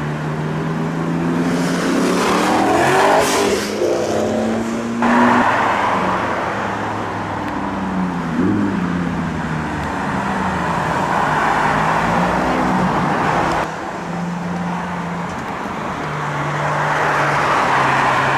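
Car engines accelerating and driving past on a street, with engine notes rising and falling as they rev, over steady road noise. The sound changes abruptly twice, about five seconds in and again near fourteen seconds.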